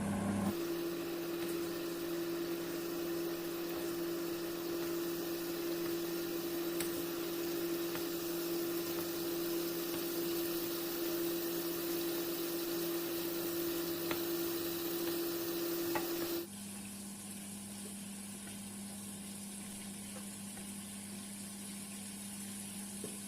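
Seasoned chicken frying in oil in a pan on low heat: a steady sizzle over a low steady hum. About sixteen seconds in it drops suddenly to a quieter hiss.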